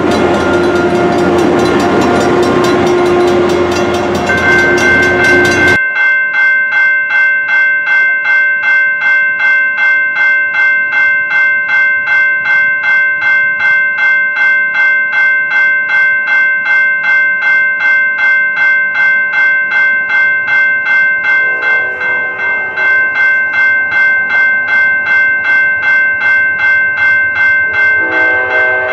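A GP38-2 diesel locomotive rumbles past close by for the first few seconds. After a sudden change, a railroad crossing bell rings in quick, even strokes. A distant train horn sounds briefly about two-thirds of the way through and again near the end.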